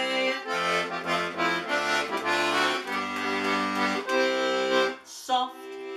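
Accordion playing an instrumental passage of a traditional folk song, sustained chords over a bass line that changes every second or so. It dips briefly about five seconds in, then comes back.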